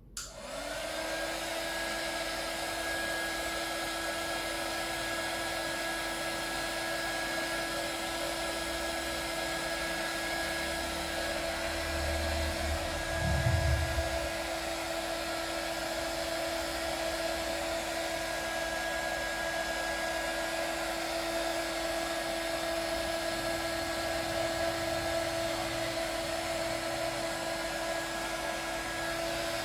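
Hot air gun switched on, its fan motor spinning up within the first second and then running steadily with a constant whine, used to heat a motorcycle headlight lens so it can be opened. A low rumble comes in about twelve seconds in and peaks as the loudest moment a second or two later.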